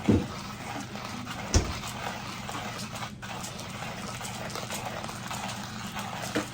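A dog making short sounds, once at the start and again near the end, with a sharp knock about a second and a half in, over a steady background hum.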